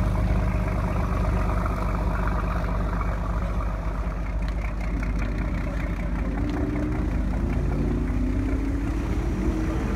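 Motorboat engine running close by at low speed, with its pitch rising over the last few seconds as the throttle is opened.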